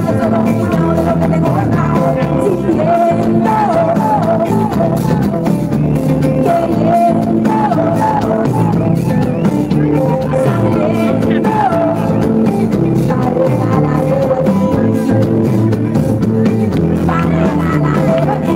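A live band playing loud: a singer's voice carries the melody over electric guitar and drums.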